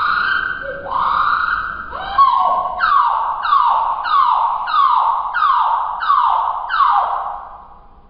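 Domestic canary singing, played back slowed down, so its notes are low and drawn out. First come a few long notes that rise and then hold; from about three seconds in, a run of about eight falling notes, evenly spaced, stopping just before the end.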